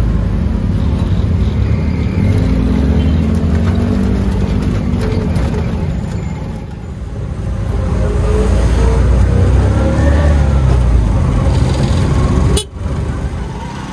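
Engine of a bajaj auto-rickshaw running loudly on a ride through city traffic, with pitch that wavers in the middle. It cuts off sharply near the end.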